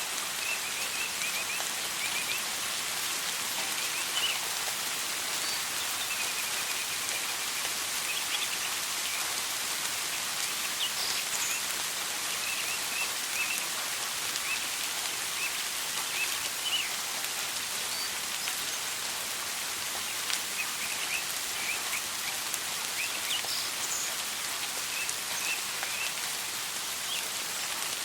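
Steady rain falling as an even hiss, with short bird chirps heard now and then over it.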